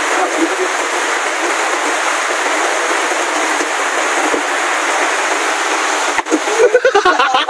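Steady hiss of heavy rain pouring down. Near the end a few sharp knocks and voices come in over it.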